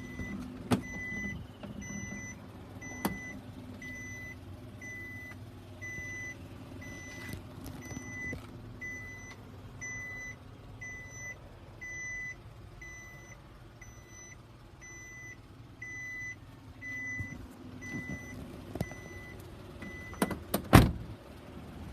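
Isuzu Elf dump truck's electronic warning beeper sounding about once a second over a steady low engine hum, with a few clicks and two loud knocks near the end.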